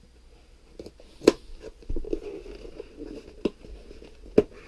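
A knife slitting the packing tape on a small cardboard mailer box, then the box being handled and opened. There is cardboard scraping and rustling, with a few sharp clicks; the loudest comes a little over a second in.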